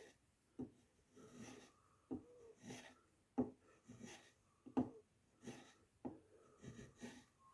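Freshly sharpened wood chisel paring into a piece of wood in short strokes: about ten faint, soft scraping cuts, roughly one every two-thirds of a second.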